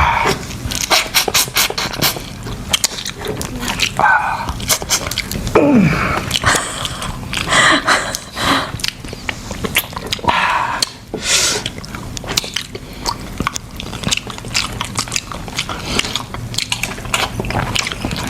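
Close-up eating sounds of sauced seafood: wet chewing, lip-smacking and slurping, full of quick sticky clicks, with a few louder slurps.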